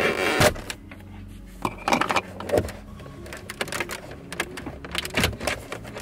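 Plastic dash trim panel of a Toyota Tundra being pried off with a plastic wedge tool: creaking and scraping plastic, with a string of sharp, irregular clicks as the retaining clips let go. A steady low hum runs underneath.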